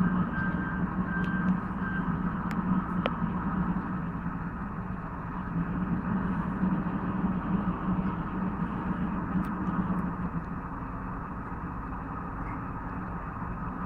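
Diesel engine of an asphalt paver running steadily. A reversing alarm beeps in short, evenly spaced pips for the first two seconds or so, then stops.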